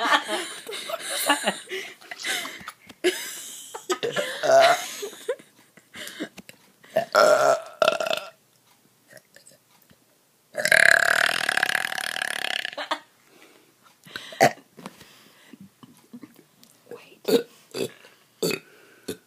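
People burping on command: a series of belches, most of them short, with one long drawn-out belch of over two seconds about halfway through, then a few brief sharp sounds near the end.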